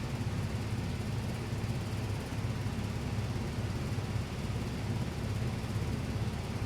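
Furnace running with a steady low hum.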